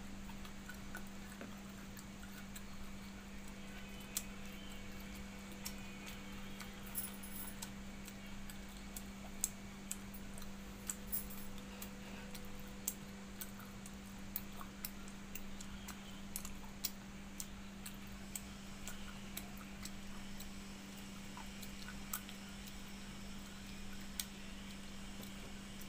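Quiet eating by hand: fingers mixing watered rice in a steel bowl, chewing, and scattered small clicks and light clinks of glass bangles, over a steady low hum.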